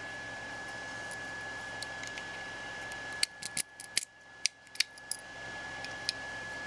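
Sharp small metallic clicks, about eight to ten in two seconds starting about three seconds in, as a small screwdriver works a pin out of the side of a WE G39 gas blowback rifle's metal trigger assembly. Under it, a steady hiss with a faint steady high tone.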